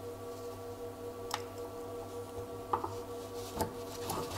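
Faint, scattered metallic clicks and light scraping as a piston's second compression ring is worked out of its groove by hand.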